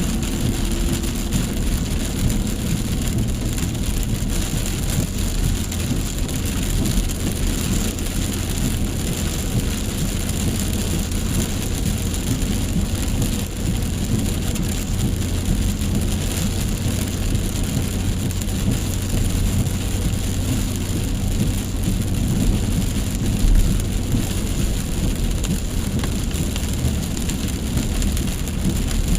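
Heavy rain falling, a steady dense hiss, with a low steady rumble beneath it that fades out near the end.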